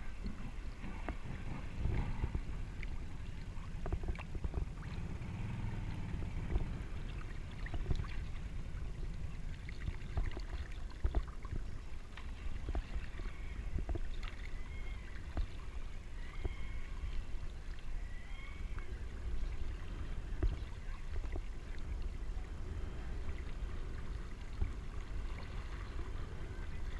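Lake water lapping and sloshing right at a camera held at the waterline, a steady low rumble broken by many small splashes and knocks.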